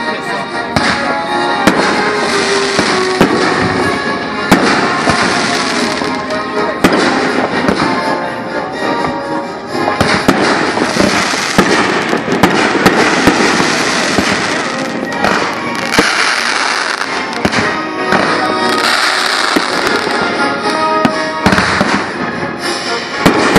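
Aerial fireworks bursting one after another, with many sharp bangs and crackling, over music.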